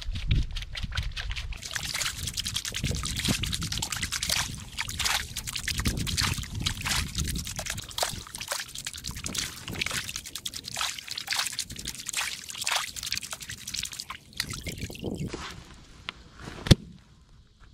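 Muddy water sloshing and splashing in a wash tub as a round screen of gravel is shaken and swirled in it, in quick repeated strokes that slow to about one or two a second and then die away. Near the end, one sharp knock as the screen is flipped down onto the ground.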